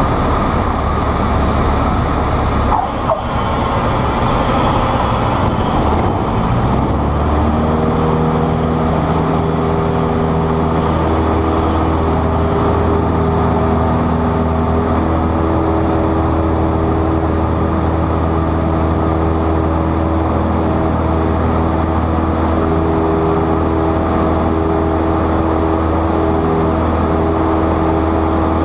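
Cessna 152's four-cylinder Lycoming engine and propeller heard from inside the cabin during the takeoff roll and climb-out, a loud, steady drone. About seven seconds in the engine note settles into a clear, even hum that holds to the end.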